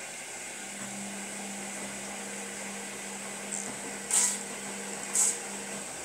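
Zanussi Lindo300 front-loading washing machine in its rinse cycle: a steady water hiss, with a low hum that starts about half a second in and stops near the end, and two brief loud surges of water noise about a second apart near the end.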